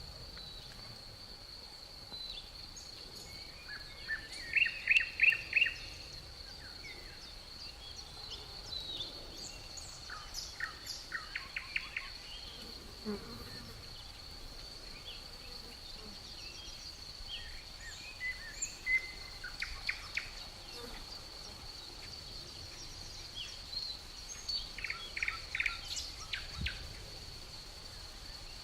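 Outdoor nature ambience: an insect trilling on one steady high note throughout, with birds calling in short rapid series of chirps four times, the loudest a few seconds in and again near the end.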